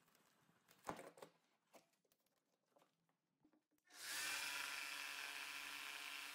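Hand brace turning an auger bit into pine: faint creaks and clicks, with one sharper knock about a second in. About four seconds in, an electric jigsaw starts suddenly and runs steadily, cutting into the wooden edge of the tabletop; it is the loudest sound.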